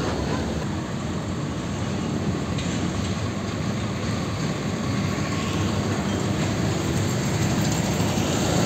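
Heavy diesel container trucks passing close by: a steady, loud engine rumble with tyre and road noise. The sound changes about two and a half seconds in as one truck gives way to the next, an old cab-over tractor hauling a container on a skeletal trailer.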